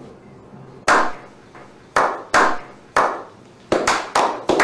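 A slow hand clap: single claps about a second apart, quickening near the end as more people join in.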